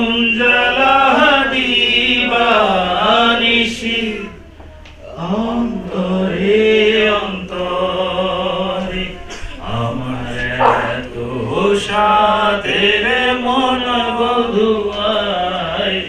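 A man singing into a microphone, holding long wavering notes in phrases with short breaks between them.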